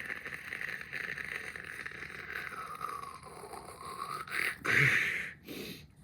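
A thick pineapple smoothie being drunk with a steady slurping hiss that dips lower and comes back up, and a louder slurp about five seconds in.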